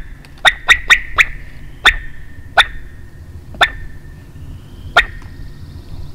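Sharp turkey clucks, about eight of them: four in quick succession, then single clucks spaced further and further apart.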